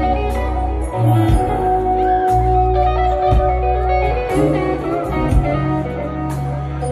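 A live band's instrumental passage: electric guitar played over a bass guitar, with sharp regular hits through it.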